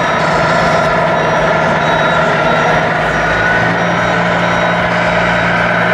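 Sound modules of large-scale RC model trucks playing a diesel truck engine running steadily, with reversing beeps.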